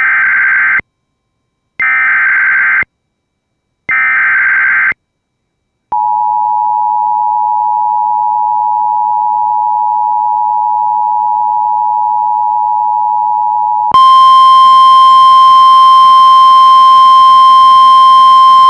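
Emergency Alert System warning tones. Three one-second bursts of warbling SAME header data tones are followed by the steady two-tone attention signal for about eight seconds. Near the end a single louder, harsh-sounding alert tone takes over.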